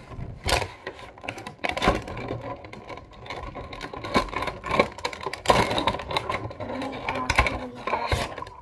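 Stiff clear plastic blister packaging crackling and clicking as it is handled, flexed and pulled apart, a dense run of irregular sharp clicks and crinkles.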